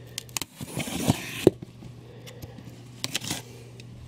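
Folding knife slitting the packing tape along a cardboard box's seam: a scratchy cutting sound about a second in, with several sharp clicks and taps of the blade and box.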